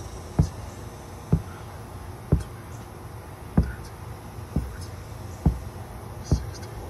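Felt-tip marker dabbed onto a car's fibreboard headliner, a dull knock about once a second as each star position is dotted.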